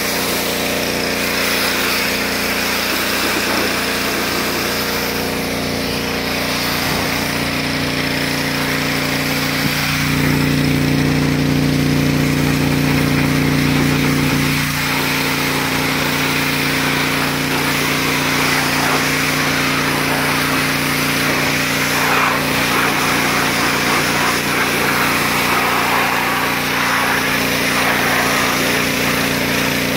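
Pressure washer running steadily: a constant hum from its motor and pump, with the hiss of the water jet hitting the car's bodywork. It gets louder for a few seconds around the middle.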